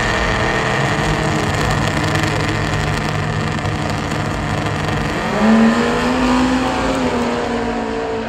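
Loud truck engines running, with one revving up about five seconds in, its pitch climbing and then holding.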